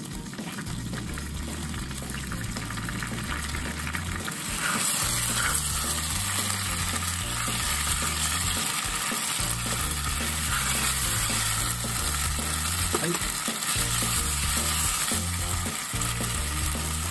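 Beef sizzling in a frying pan while a wasabi sauce is seared onto it on high heat, the sizzle getting louder about four and a half seconds in, with tongs scraping and turning the meat. A low background music bass line runs underneath.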